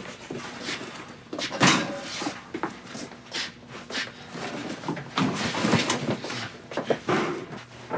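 Boxes and supplies being handled and set down on shelves in a small storage closet. It is a string of irregular knocks, bumps and rustles, the loudest about a second and a half in.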